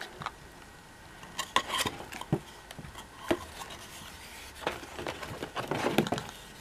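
Hard plastic Kitty Korner blind-box carrier cases being lifted out of a cardboard display box and set down one after another: a string of light, irregular clicks and knocks with soft rubbing between them.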